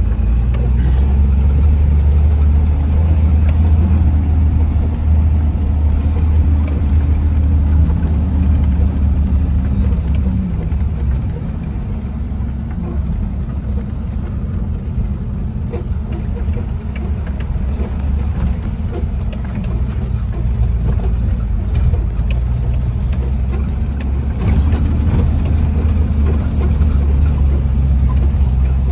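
Off-road vehicle's engine running while driving, a loud low drone with the pitch shifting a little about eight to ten seconds in.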